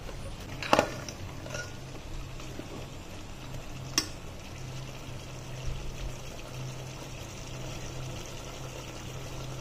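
Steel ladle stirring mutton masala in a pressure cooker: a soft steady hiss and scraping, with two sharp clinks of the ladle against the cooker, one about a second in and one about four seconds in, over a steady low hum.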